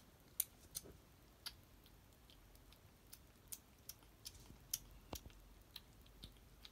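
Kitten crunching dry cat food: faint, irregular sharp clicks and crunches, a dozen or more scattered through.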